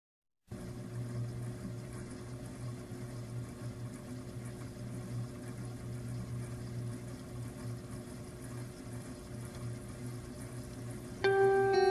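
Opening of an instrumental post-rock track: a steady noisy drone with a low held tone, then louder plucked guitar notes come in near the end.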